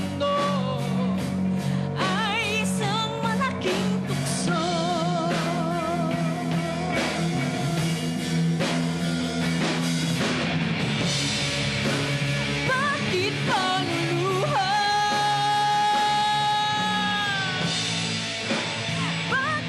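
Rock band playing live with a singer; the voice wavers with vibrato and holds one long note for about three seconds toward the end.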